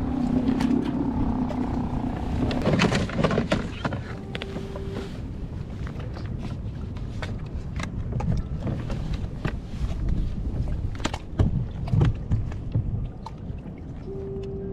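Scattered knocks and clatter on a plastic fishing kayak over a steady rumble of wind and water on the microphone. A short steady beep sounds twice, about four seconds in and near the end.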